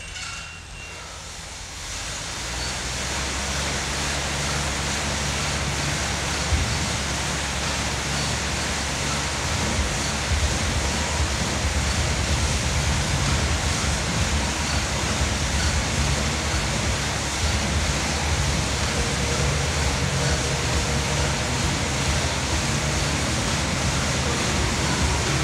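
Fan of an air bike whooshing as it spins up under hard pedalling and arm pushing, building over the first few seconds and then holding a steady loud rush with a low hum beneath.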